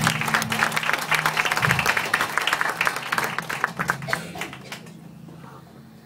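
Audience clapping in a small live-music club, dense at first and dying away over about four seconds, with a low steady hum underneath.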